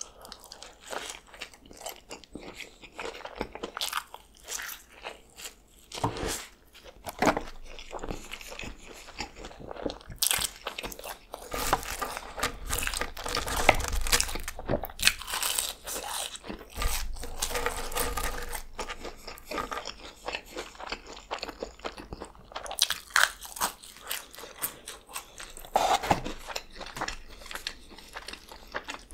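Close-miked eating: bites into a McDonald's Filet-O-Fish sandwich and french fries, followed by steady chewing.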